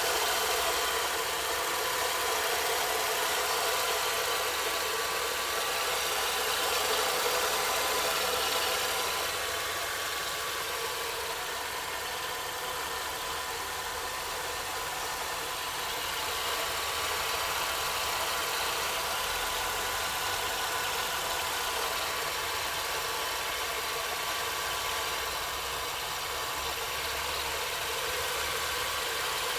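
Chevrolet Celta's VHCE four-cylinder engine idling steadily, carrying the strange noise the owner is trying to show, a fault that appeared about a week after the car drove through flooded streets.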